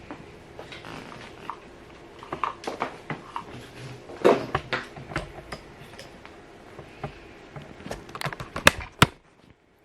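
Scattered metallic clicks and knocks of hand tools and parts being handled while a V8 engine is being torn down. Two sharp clinks come near the end.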